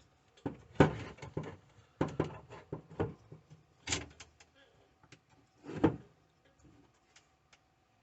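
Irregular clicks, knocks and scrapes of a Samsung Chromebook's plastic housing and screen parts being handled and pressed together during a screen replacement, quieter near the end.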